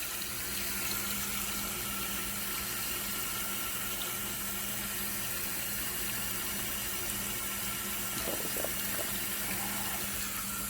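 Tap water pouring into the tub of a Giantex portable washing machine as it fills at the start of a wash cycle: a steady rush of water with a steady low hum underneath.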